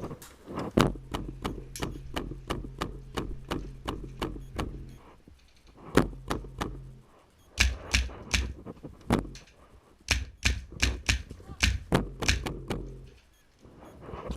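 Airsoft rifle on HPA firing strings of rapid shots, about four a second, broken by short pauses.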